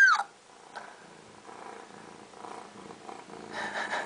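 Domestic cat purring faintly, a little louder near the end.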